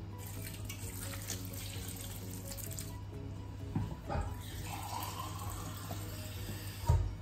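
Water poured from a cup into a large aluminium cooking pot of mutton, tomatoes and jackfruit, splashing onto the ingredients for about the first three seconds. A couple of light knocks follow, around the middle and near the end.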